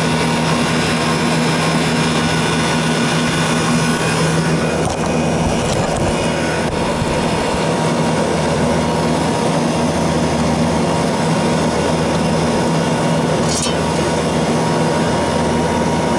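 Walk-in cooler condensing unit running: the refrigeration compressor and condenser fans hum steadily. A few faint knocks come partway through.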